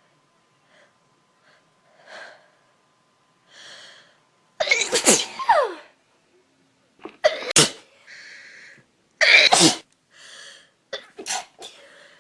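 A woman sneezing over and over in a run of loud sneezes, with sharp breaths in between them and a few smaller sneezes near the end. She puts the fit down to dust allergy, though she wonders whether it is a cold.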